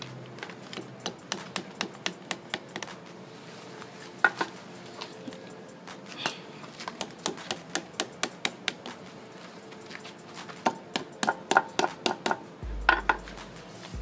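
Hammer tapping a thick insulated wire into the tight window of a microwave oven transformer's iron core, in sharp metallic blows in runs of about four a second, forcing the third secondary turn into place. The loudest blows come near the end.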